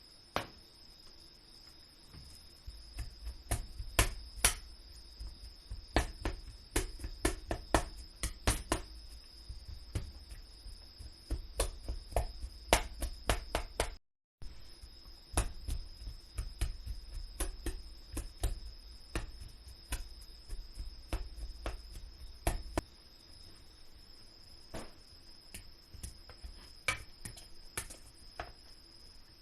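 Irregular knocks and taps of kitchen work, each with a dull thud, like utensils striking a cutting board or bowl. They break off briefly about halfway and stop about 23 seconds in, over a steady high-pitched whine.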